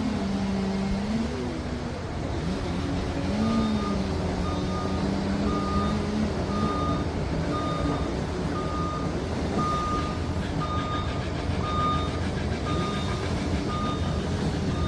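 Liebherr PR 746 Litronic crawler dozer's diesel engine running, with its reversing alarm beeping about every two-thirds of a second from about three seconds in: the machine is backing up.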